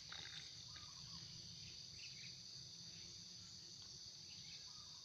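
Faint, steady, high-pitched chirring of crickets.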